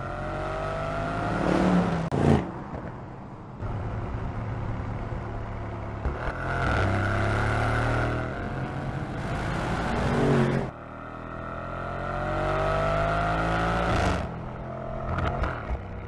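Mercedes-AMG GLC 63 S's twin-turbo V8 under hard acceleration. The engine note climbs in pitch and drops sharply several times, as at upshifts, with a few short, sharp cracks at the changes.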